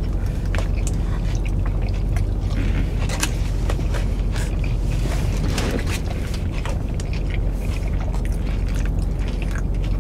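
Eating sounds: a plastic fork scraping and clicking in a takeout container, with chewing and biting, over a steady low hum inside a car's cabin.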